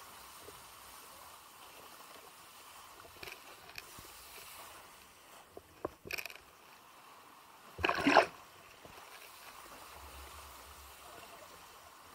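Kiteboard skimming over shallow lagoon water: a steady rush of water with a few splashes, the loudest a short splash about eight seconds in.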